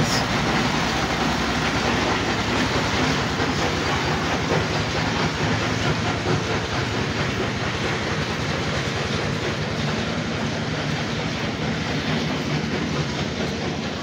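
A small vehicle's engine running steadily while riding along a road, with a low rapid pulsing under wind and road noise.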